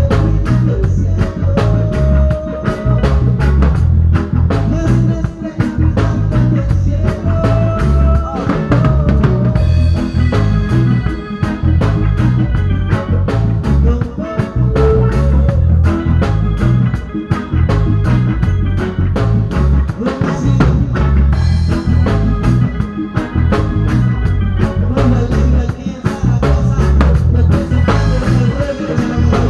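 Live band music in a ska-like style, with a drum kit keeping a steady beat over bass and melodic lines.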